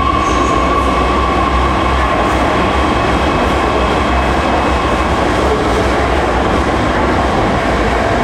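Hohhot Metro Line 2 subway train pulling out of an underground station and running past behind the platform screen doors: a steady, loud rumble of wheels on rail. A high tone from the train fades out about two seconds in.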